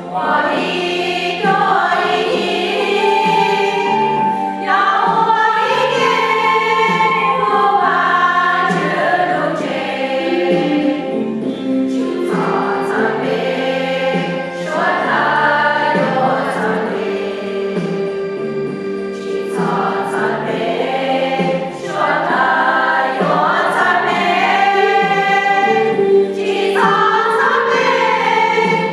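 Many voices singing a hymn together in phrases.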